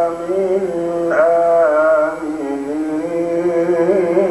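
A male Quran reciter chanting in melodic tajweed style, drawing out long held notes with wavering ornaments; a new phrase begins about a second in.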